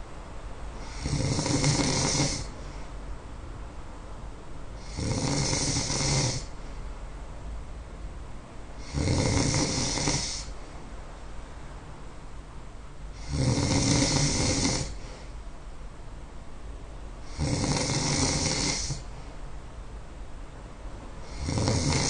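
A person snoring in sleep, a long snore about every four seconds, each lasting about a second and a half.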